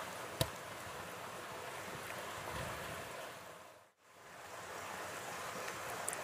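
Steady rushing outdoor background noise with one sharp knock shortly after the start. About two-thirds through, the sound fades out to silence and comes straight back at a video transition.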